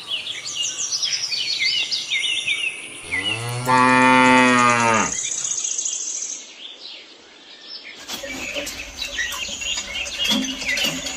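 A cow mooing: one long call about three seconds in, lasting about two seconds, over birds chirping before and after it.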